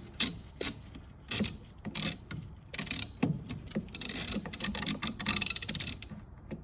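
Socket ratchet clicking as loosened steering-box cover bolts are backed out. There are a few separate clicks at first, then a fast run of clicking from about four seconds in that stops shortly before the end.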